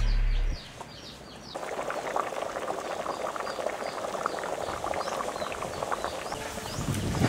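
Soup at a rolling boil in an aluminium pot, a steady bubbling that sets in about a second and a half in, with birds chirping in the background. A music track ends in the first half-second.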